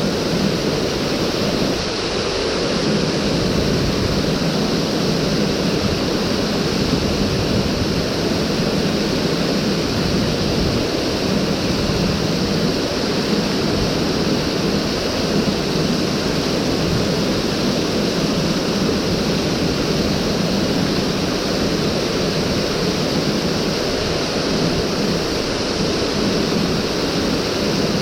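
Mountain stream water rushing over rocks, a steady unbroken rush.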